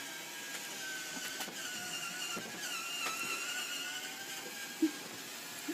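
Self-cleaning automatic litter box running its cleaning cycle: an electric motor whining steadily, its pitch wavering a little, with two short thumps near the end.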